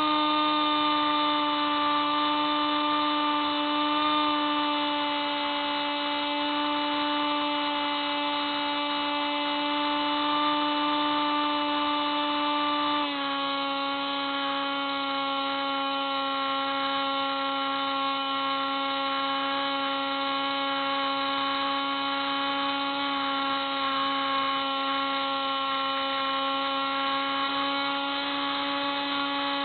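Hubsan Spyhawk RC plane's electric motor and propeller, heard close up from on board, running with a steady whine. The pitch steps down slightly about 13 seconds in as the motor slows a little.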